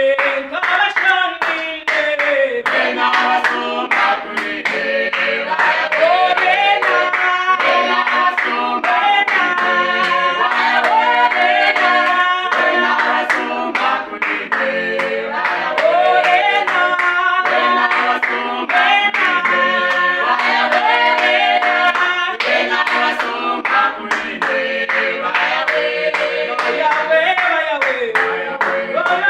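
Praise team of several voices singing a worship song, with steady hand clapping on the beat.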